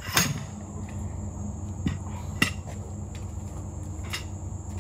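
A few short, sharp clinks and knocks, four or so spread out, over a steady high insect trill and a low hum.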